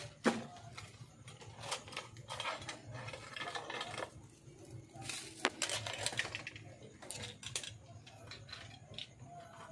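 Scattered clicks and light taps of copper wire leads and a wire spool being handled on a workbench, with a sharp click just after the start and another about five and a half seconds in. A low steady hum runs underneath.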